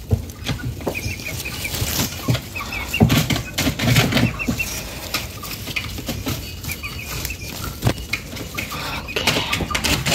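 Chickens clucking, with runs of short high chirps, over the rustling and crackling of tomato plant stems and leaves being handled.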